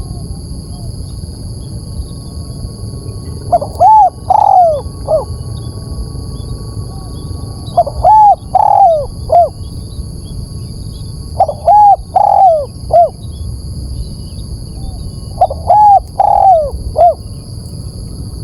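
Spotted dove (tekukur) cooing: four phrases of three or four short arching coos, one phrase about every four seconds, over a steady low background hiss and a faint constant high whine.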